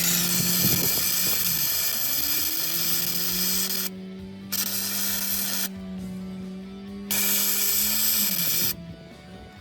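Wire-feed arc welding on a cast steel steering knuckle: the arc hisses and crackles in three runs of a few seconds, with short pauses between beads. A steady low hum runs underneath.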